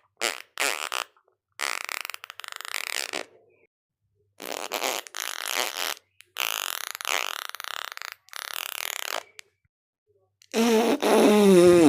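A string of about eight fart sounds, each cut off by a short silence. Near the end comes a longer, louder one with a wavering pitch that falls.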